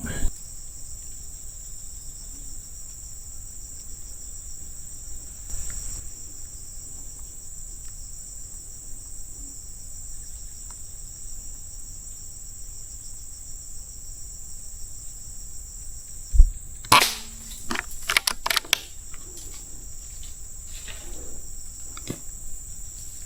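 Insects buzzing steadily in a high band; about 16 seconds in, a single sharp air-rifle shot that hits a squirrel, followed within a couple of seconds by a short run of clattering knocks and rustles.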